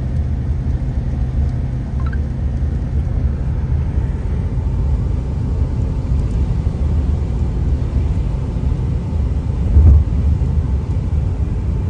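Steady low road rumble of tyres and engine heard inside a moving car's cabin on a wet highway, swelling briefly about ten seconds in.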